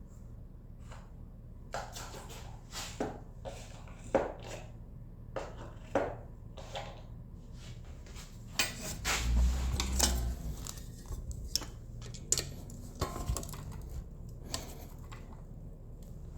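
Hand tools clinking and knocking against metal motorcycle headlight hardware in irregular short clicks, with a heavier thump about nine seconds in.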